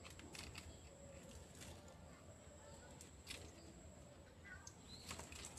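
Near silence, with scattered faint clicks and rustles and a steady thin high whine.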